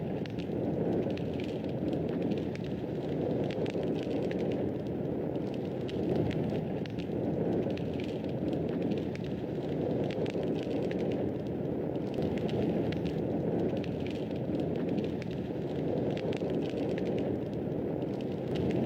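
Fireplace fire burning, a steady low rushing with frequent small, irregular crackles and pops.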